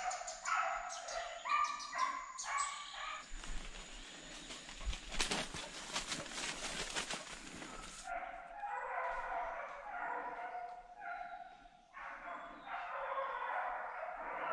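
Hunting dogs baying and yelping in quick repeated cries while chasing an agouti. From about three and a half to eight seconds in, a loud stretch of rustling and crackling drowns them out; the dogs' cries return after it.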